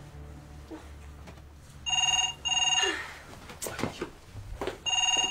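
Telephone ringing in a double-ring pattern: a pair of short, bright trilling rings about two seconds in, then another pair about three seconds later.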